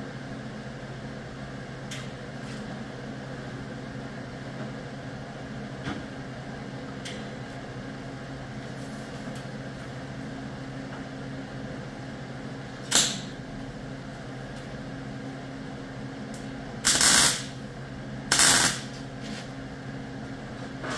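A steady low hum of shop equipment, with a few light clicks, a sharp knock about thirteen seconds in, and two brief loud rushes of noise, each about half a second long, near the end.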